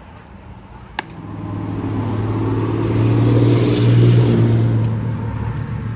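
A motor vehicle's engine passing close by, swelling to a peak around the middle and fading again at a steady pitch. There is a sharp crack about a second in.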